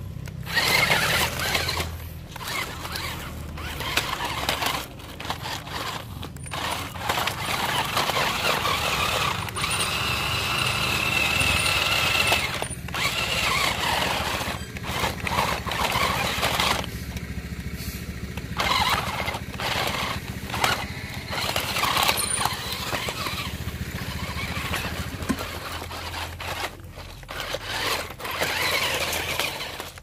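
4x4 RC rock crawler toy truck's electric motor and gearbox whining as it crawls over broken concrete and brick. Rubble scrapes and clatters under its tyres, and the whine is strongest and most even around ten to twelve seconds in.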